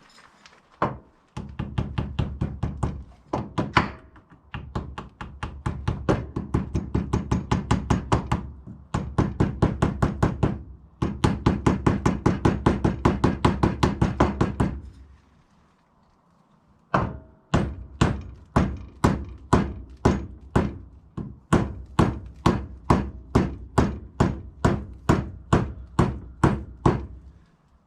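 Hammer tapping a new axle seal into its bore on an ATV: runs of quick light taps, about four or five a second, then after a short pause about a third of the way from the end, slower single taps about twice a second.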